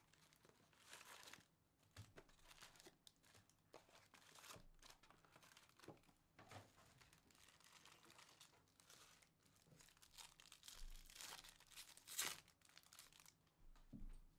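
Faint tearing and crinkling of trading-card pack wrappers from a 2024 Bowman Jumbo box being ripped open, with one louder crackle near the end.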